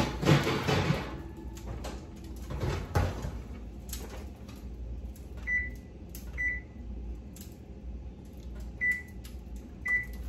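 Metal baking pan and oven door clattering as a foil-covered pan is taken out of an electric oven and set on the stovetop, with a knock a few seconds in. Then the range's control panel gives four short high beeps as its buttons are pressed.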